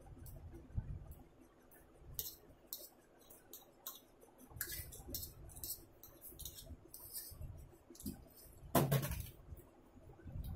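Metal fork clinking and scraping on a ceramic plate as chow mein noodles are scooped up, with eating sounds from the mouth; a louder mouth noise about nine seconds in.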